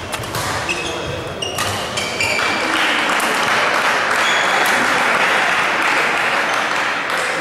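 Short high shoe squeaks on the sports-hall court floor and sharp shuttlecock hits, then from about two and a half seconds in, applause in the hall lasting several seconds.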